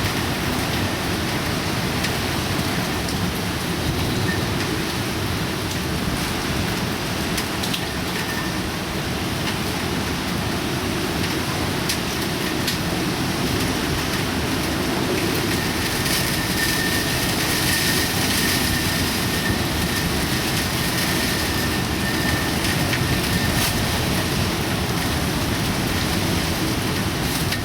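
Heavy typhoon rain: a steady, dense rushing downpour with fine scattered patter. A faint thin high tone sounds for several seconds in the second half.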